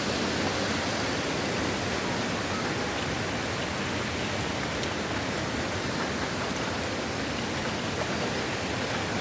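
Steady, unbroken rushing noise of hurricane wind and rain.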